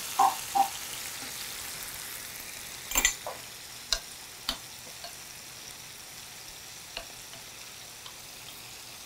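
Lemon slices sizzling in a hot frying pan, a steady hiss that slowly eases, searing just enough to caramelize. Scattered light clinks of a utensil against a mixing bowl as a sauce is stirred.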